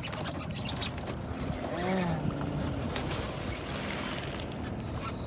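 Steady wash of wind and sea water around a small wooden outrigger fishing boat, with no speech.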